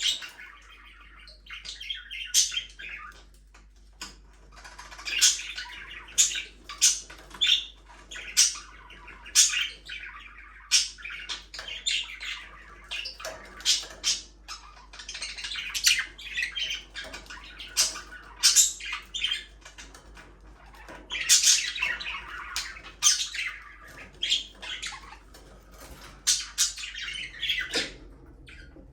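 Budgerigars chattering and squawking: many short, sharp chirps and harsh calls, overlapping and irregular.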